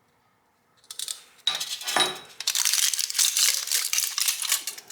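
Crinkling and rattling of the wrapping around a freshly heat-treated steel part as it is opened by hand. It starts about a second in and goes on as dense, quick crackles.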